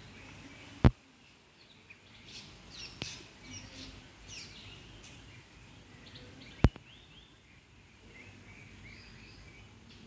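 Wild birds chirping, with two sharp clicks, one about a second in and one near seven seconds, which are the loudest sounds.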